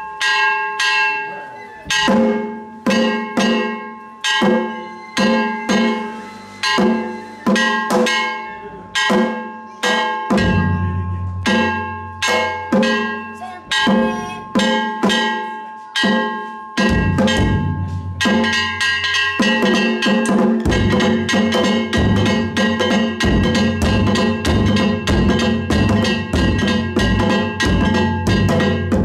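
Danjiri float music played on percussion: a hanging hand gong struck in a quick steady beat, ringing, over small drums. A large taiko drum comes in about ten seconds in, and the drumming turns dense and continuous from about eighteen seconds.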